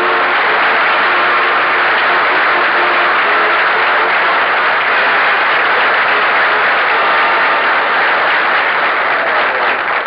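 Studio audience applauding steadily, with a faint music cue underneath in the first few seconds.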